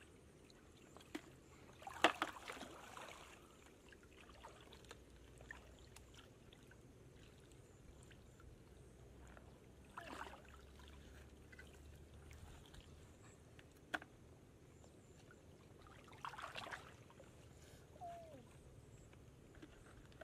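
Splashing and sloshing of shallow muddy water as someone wades and feels through it by hand, in short bursts: the loudest about two seconds in, others around ten and sixteen seconds. A single sharp knock around fourteen seconds.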